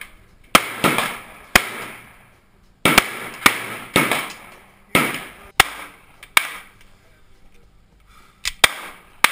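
AK-47-pattern rifle firing single aimed shots, about nine in six seconds, each a sharp crack with a ringing tail. After a pause, a few fainter shots follow near the end.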